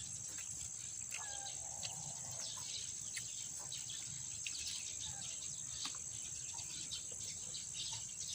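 Steady high-pitched drone of insects trilling outdoors, with scattered short clicks and brief chirps over it.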